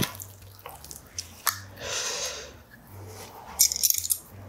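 A spoon scooping sticky cooked purple rice from a ceramic bowl: a sharp click of the spoon on the bowl at the start, soft squishing of the rice, and a quick cluster of light utensil clicks near the end.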